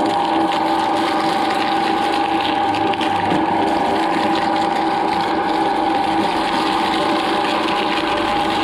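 Twin-shaft shredder running with a steady mechanical drone, its interlocking cutters chewing through whole ears of corn in the husk.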